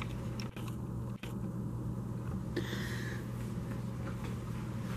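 Quiet room tone with a steady low hum, and a brief faint whir about two and a half seconds in.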